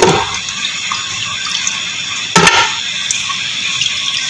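Washed mutton trotters dropped into an empty aluminium pot: two clunks about two and a half seconds apart, over a steady hiss.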